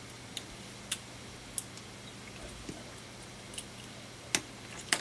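Small sharp clicks and taps, about six spread irregularly, from hand tools working on the opened iPhone 6S's internal parts; the two loudest come near the end. A faint steady low hum runs underneath.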